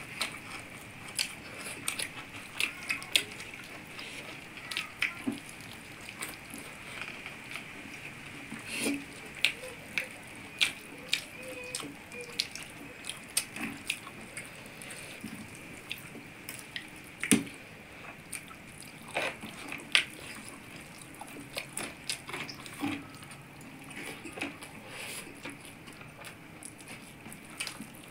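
Close-miked eating by hand: wet chewing and mouth clicks, with squishing of rice and curry as fingers mix it on steel plates, heard as irregular sharp clicks and squelches.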